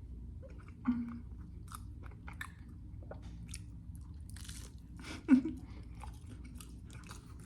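Close-up mukbang chewing: wet mouth clicks, smacks and light crunches of food, in scattered short bursts over a faint steady low hum. A short louder sound comes about five seconds in.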